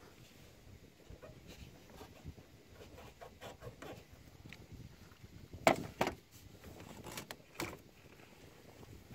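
Hands disconnecting a fuel hose from a diesel fuel filter housing in an engine bay: faint rubbing and handling noise with a few sharp clicks, the loudest two close together about six seconds in.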